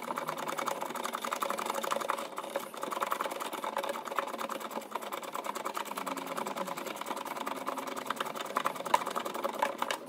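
Rapid, steady clicking of a ratchet wrench turning out a Torx T30 bolt that holds the door handle inside a Porsche 911 door.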